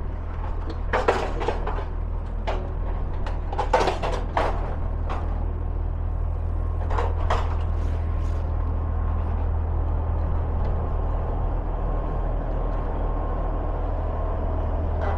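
Pickup truck's engine running at low speed as it is backed slowly up the ramps onto a car-hauler trailer, a steady low rumble. A few sharp clunks come in the first half, and a faint steady whine in the second half.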